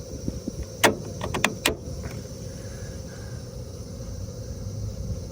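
A few sharp clicks and knocks in the first two seconds, over the steady hum of a running rooftop HVAC unit with a held whine.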